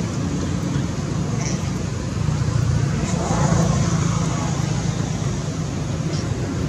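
A steady low rumble that swells briefly about three seconds in.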